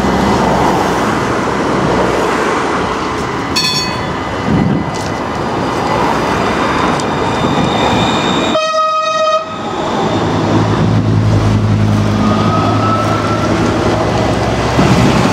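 HTM RandstadRail 4000-series tram (Alstom RegioCitadis) pulling away and rolling past, a loud rumble of wheels and running gear. A short horn-like tone sounds about nine seconds in, and a steady low hum follows as it moves off.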